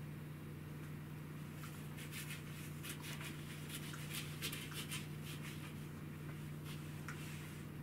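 Faint scratching and rustling of a cat's paws and claws in a corgi's fur, a run of quick scratches from about two seconds in to about five and a half seconds in, over a steady low hum.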